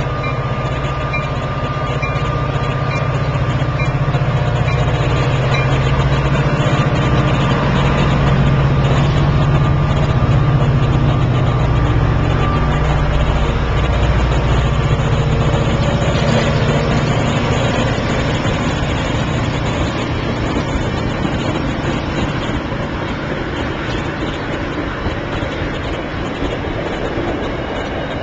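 EMD F40C diesel locomotive with a 16-cylinder two-stroke engine approaching and passing at close range. Its deep engine hum is loudest about halfway through as the locomotive goes by, then eases as the bilevel coaches roll past.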